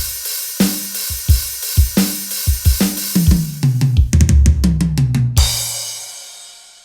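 Drum-kit sounds from a Roland SPD-30 Octapad preset: a steady kick-and-snare groove that breaks into a quick fill of toms stepping down in pitch, then a final hit with a crash cymbal that rings out and fades away.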